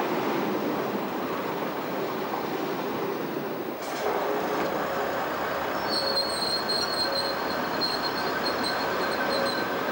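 Diesel multiple unit running on the rails with a dense steady rumble; the sound changes abruptly about four seconds in, and from about six seconds a high, steady wheel squeal rings over the rumble until near the end.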